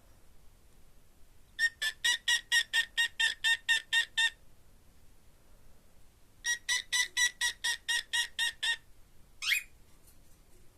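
Cockatiel calling in two rapid runs of short, evenly repeated chirps, about four or five a second, each run lasting two to three seconds, then one short rising whistle near the end.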